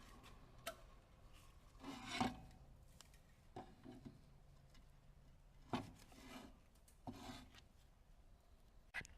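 Faint scraping strokes and a few light metallic clicks a second or two apart: metal parts and tools being handled and rubbed during hand work.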